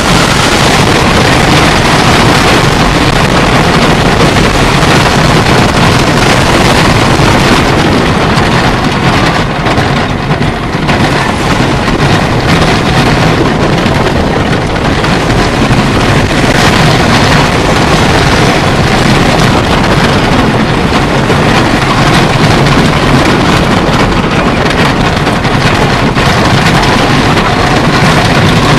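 Wind rushing over the microphone with the rumble and clatter of a wooden roller coaster train running along its track at speed, heard from a rider's seat. Loud and steady throughout, with a brief dip about ten seconds in.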